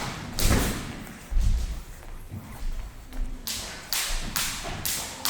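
Boxing gloves landing punches during sparring: irregular thuds and slaps, several in quick succession near the end.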